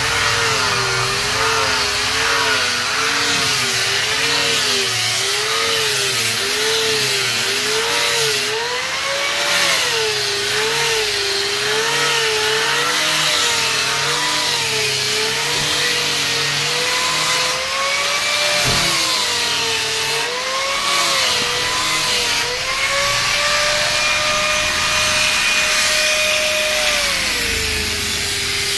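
Hand-held angle grinder with a sanding disc, sanding a wooden frame: the motor note dips and rises about once a second as the disc is worked back and forth under load, over a steady hiss of sanding. Late on, the motor runs higher and steadier for a few seconds before dropping again.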